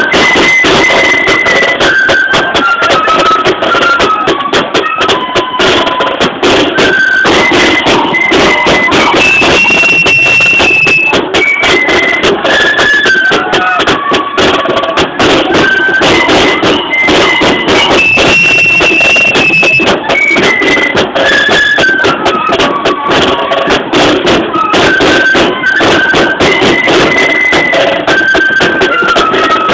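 Marching flute band playing: flutes carry a stepping tune over snare drums and a bass drum beating steady time.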